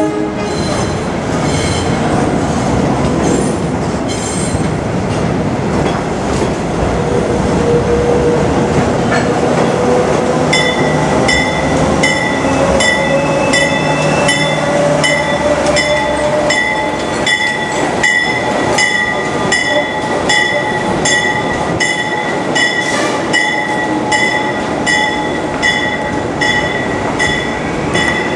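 NYC Transit R41 work locomotive shoving a crane car over elevated subway track: steel wheels rolling and squealing on the curve over the running locomotive. About a third of the way in, a high tone starts pulsing at an even beat and keeps on.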